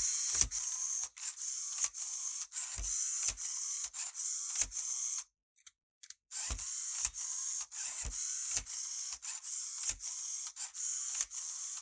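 LEGO Technic gear train and tread-link chain driven by a LEGO EV3 motor, running with a high plastic whir and frequent clicks and knocks. It stops for about a second about five seconds in, then starts again.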